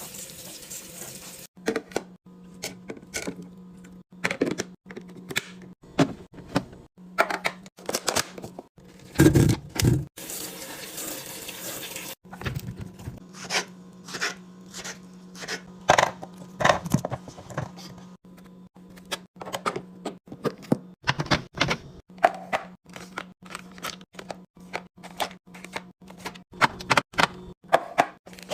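Plastic containers and groceries being handled and set into a fridge: many quick clicks, taps and knocks over a steady low hum, with a brief rush of noise like running water about ten seconds in.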